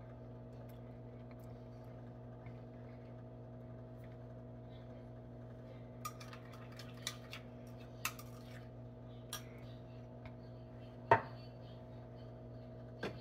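Metal spoon clinking against a small glass bowl while stirring, a scatter of light clinks, then one louder knock of a glass dish set down about eleven seconds in. A steady hum runs underneath.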